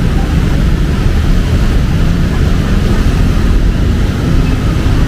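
Steady rumble of city street traffic over a constant hiss of rain.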